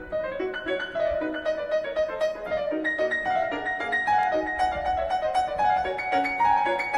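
Piano playing a quick, busy passage of many separate notes.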